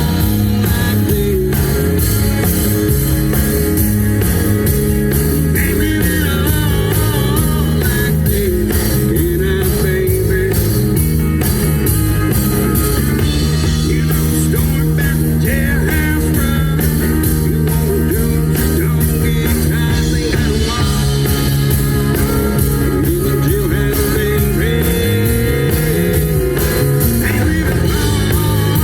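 Rock band playing: electric guitar and bass over a steady drum beat.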